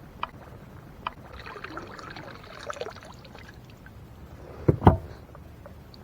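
Kayak being maneuvered: paddle and hull knocking and scraping. There are a few light knocks, then a stretch of rustling in the middle, and two loud knocks close together near the end.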